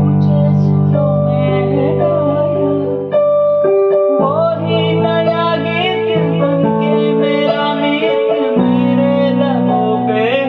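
Worship-song music on an electric keyboard: sustained piano-like chords that change about every four seconds, with a wavering melody line above them.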